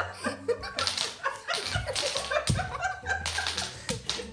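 Small upright blocks clattering onto a wooden floor as a dog walks through them and knocks them over, a scatter of sharp clicks, with a woman laughing.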